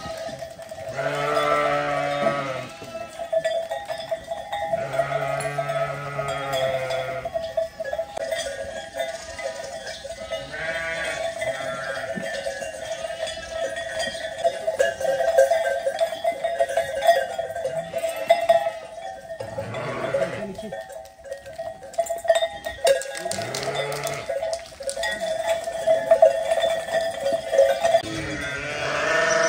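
A flock of sheep bleating, with long bleats coming every few seconds.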